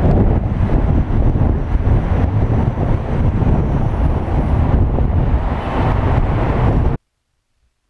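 Loud, steady street traffic noise with a low rumble. It cuts off suddenly about seven seconds in.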